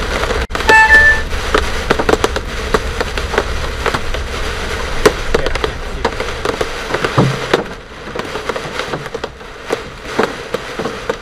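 Hailstones striking the car's roof and windshield in rapid, irregular knocks over a low rumble from the moving car. A short beep sounds about a second in, and the low rumble underneath drops away a little over halfway through.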